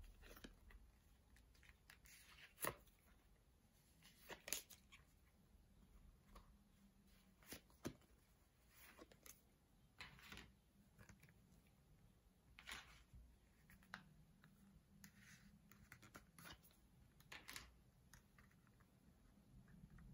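Faint handling sounds of stitched leather card holders being turned over and flexed in the hands, with cards slid in and out of the pockets: scattered soft rustles and small clicks, the sharpest a few seconds in.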